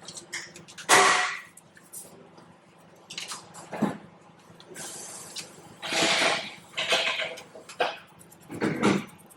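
Irregular metallic clinks, knocks and short scrapes of hand tools and parts as a replacement starter motor is fitted to a BMW B58 engine, with the loudest knock about a second in.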